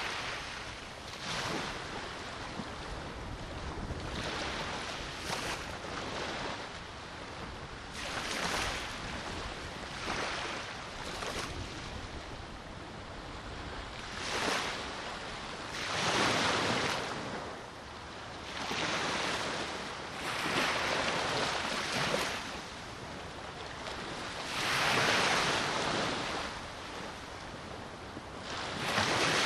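Black Sea surf washing onto the shore, swelling and falling every few seconds in a run of louder breaks. Wind buffets the microphone.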